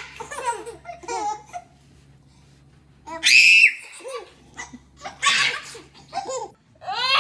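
Babies laughing in repeated bursts, with a loud high squeal about three seconds in after a short pause.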